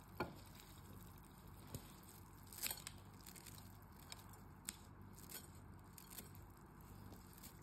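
Kitchen scissors cutting through a bundle of dry rice vermicelli: a scattered series of faint, crisp snips and crackles as the stiff noodles break, about half a dozen over several seconds.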